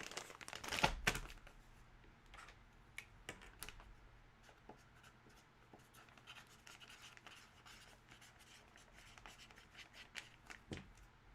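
Faint handling noises: scattered light clicks and rustles, with a louder cluster of knocks about a second in.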